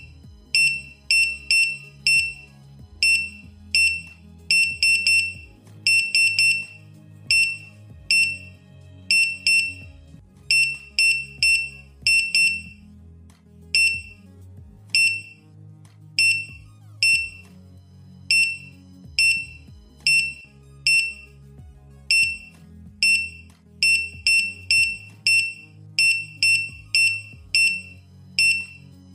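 Short high-pitched touch beeps from a 3.5-inch serial HMI touch-screen panel, one for each tap of a finger on its resistive screen, coming at an uneven pace, some in quick pairs and runs. Soft background music plays underneath.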